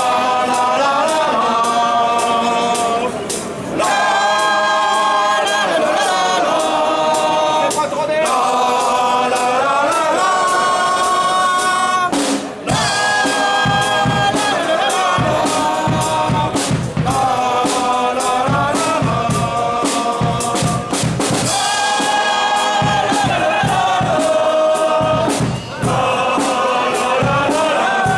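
A banda's musicians singing together in chorus, at first with little or no drumming. About twelve seconds in there is a brief break, then a steady drum beat joins the singing.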